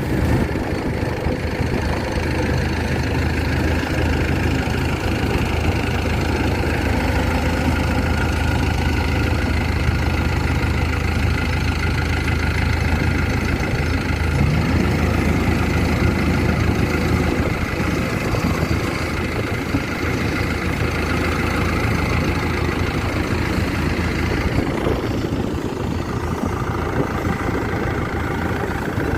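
Kubota DC-93 Extra combine harvester's diesel engine running steadily under load as the machine harvests, a continuous deep drone with a strong low hum.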